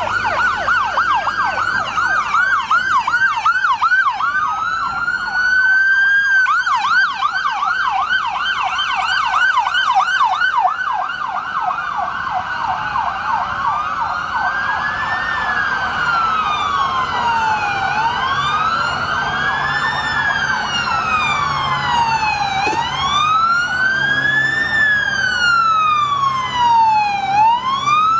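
Emergency vehicle sirens: a fast yelp for about the first ten seconds, then a slow rising and falling wail. From the middle on, two wailing sirens overlap out of step.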